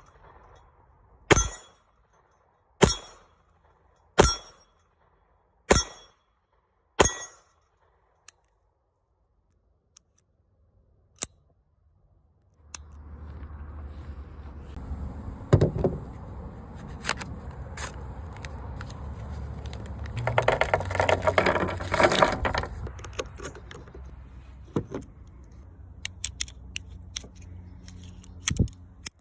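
Five handgun shots about a second and a half apart, followed by a few faint clicks. From about halfway there is mechanical handling noise over a low hum, with many clicks and a burst of metallic clinking and rattling a little before the end.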